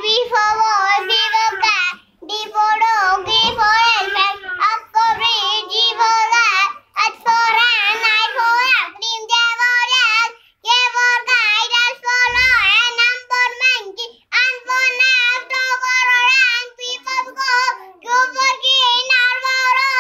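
A young boy reciting by rote in a high, sing-song chant, phrase after phrase with short breaks for breath every few seconds.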